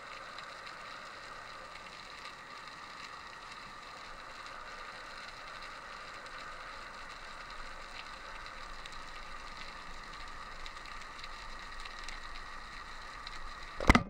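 Underwater ambience: a steady hiss with faint crackling. Near the end, one sharp, loud crack of a Gunshoot 83 pneumatic speargun firing.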